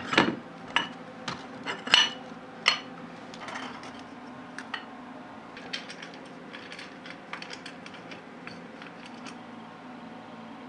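Small metal parts clinking and clicking as aluminium frame pieces, steel screws and bearing blocks are handled and fitted together by hand: a few sharper knocks in the first three seconds, then lighter scattered ticks.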